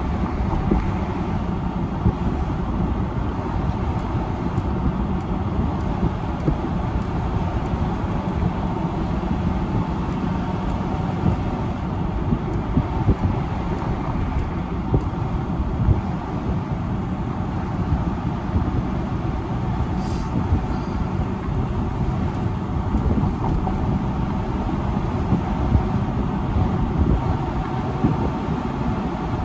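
Steady road noise of a car driving along, heard from inside the car.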